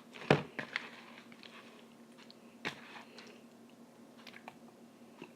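Homemade glue-and-liquid-starch slime being worked by hand: scattered sticky clicks and squelches, with a louder thump just after the start and another about two and a half seconds later.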